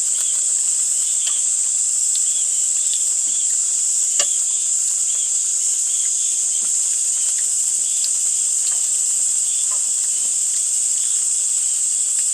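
Steady, high-pitched chorus of crickets and other insects shrilling without a break, with a fainter pulsing call beneath it; a single faint click about four seconds in.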